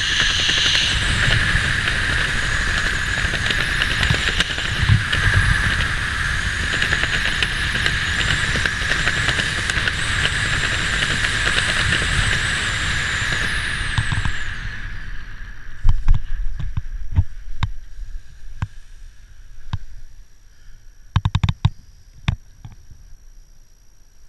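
Wind rushing loudly over the camera microphone under an open parachute canopy, dying away about fourteen seconds in as the jumper lands. Then a sharp thump at touchdown and scattered clicks and knocks as the lines and canopy are handled on the grass.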